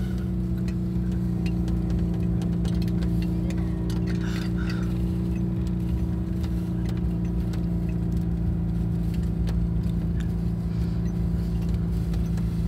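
Citroën Acadiane's air-cooled flat-twin engine running steadily at an even speed while towing, heard from inside the van, with scattered light clicks and rattles.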